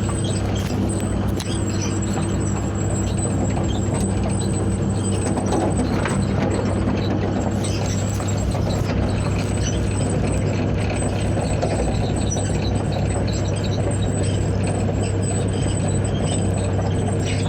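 Heavy diesel engine running at a steady speed, with scattered light metallic clicks and squeaks over it.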